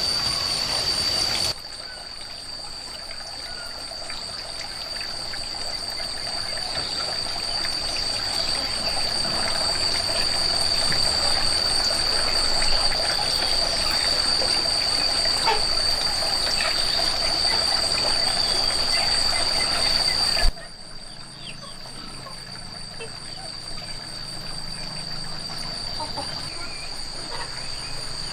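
Water trickling, with a steady high-pitched insect drone running underneath. The trickling cuts off abruptly about two thirds of the way in, leaving the insects.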